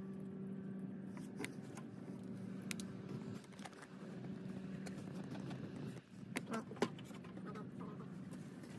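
Thread-seal (PTFE) tape being pulled off its roll and wrapped around the threads of a brass pipe fitting, heard as a few sharp crackles and clicks, with a cluster of louder clicks near the end. Under it a steady low motor hum fades out about three seconds in.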